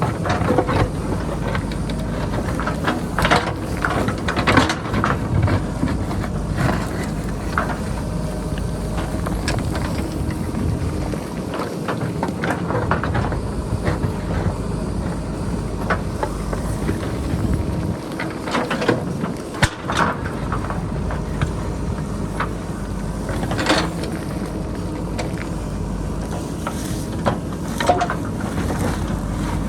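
Diesel engine of a JCB backhoe loader running steadily under load while it excavates rocky ground. Short, irregular clanks and scrapes of the bucket on rock and boulders come through the engine sound, the strongest around a quarter of the way in and again near the middle and the end.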